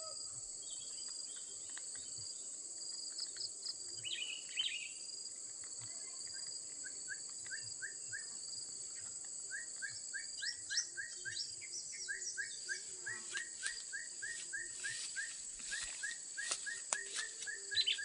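Birds calling in a plantation over a steady high-pitched insect drone. From about a third of the way in, a fast series of short rising chirps repeats at about four a second, with a few sharp clicks near the end.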